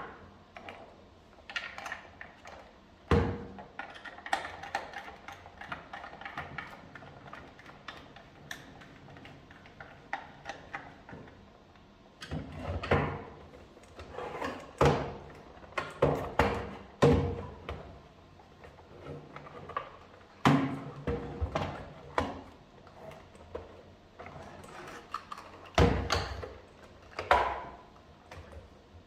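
Irregular knocks, clicks and clatter of hard plastic parts being handled, with louder thunks about 3 s in, in a cluster from about 13 to 17 s, and again about 20 and 26 s in: hands working on the cordless stick vacuum's housing and battery pack.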